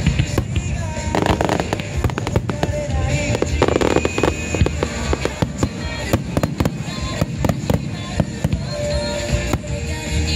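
Starmine fireworks barrage: aerial shells bursting in rapid succession with many sharp bangs and crackles, over music playing throughout.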